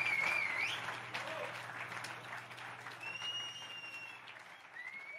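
Concert audience applauding as the clapping thins out and dies away. Over it come a few high, drawn-out whistles from the crowd: a wavering one at the start, then two long steady ones.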